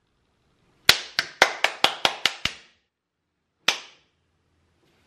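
Sharp hand claps: a quick run of about eight, about five a second, then a single clap about a second later.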